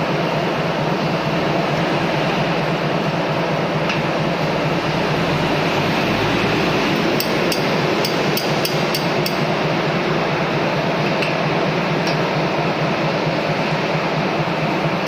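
Steady machinery running in a workshop, with a quick run of about seven sharp metallic taps about halfway through and a few single taps besides, like light hammer or tool strikes on metal.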